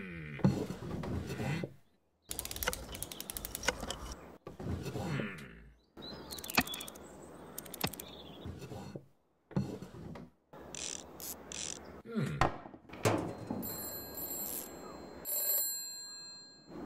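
A run of rapid clicking and scattered knocks, then near the end a desk telephone's bell rings in steady high tones.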